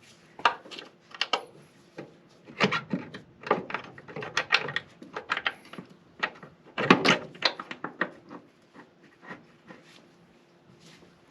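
Irregular clinks, knocks and scraping of metal suspension parts and hand tools being handled while a camber-arm bolt is fitted, busiest between about two and eight seconds in.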